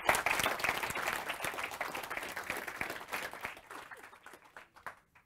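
Audience applauding, a dense patter of many hands clapping that thins out over the last couple of seconds and dies away.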